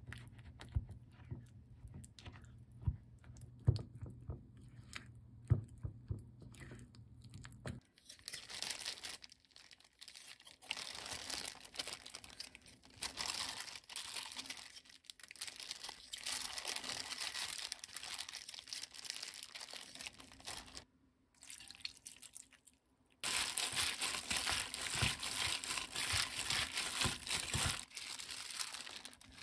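A silicone spatula stirring a thick chili-paste marinade in a glass bowl, with light taps and clicks. Then a sustained crinkly rustle of a disposable plastic glove as a hand presses and turns raw pork slices in a stainless steel bowl, louder near the end.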